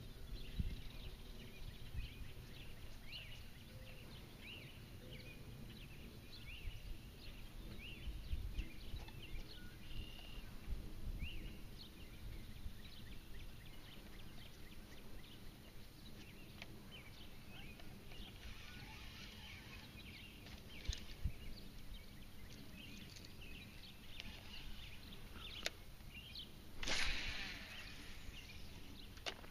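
Small birds chirping and calling over a low background rumble, with a brief loud swish near the end from a cast of the fishing rod.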